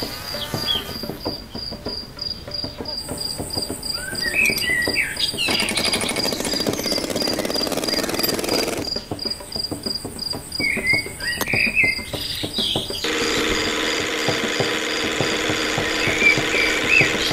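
A cricket trilling steadily in a fast pulsing chirp, with birds chirping briefly a few times over it.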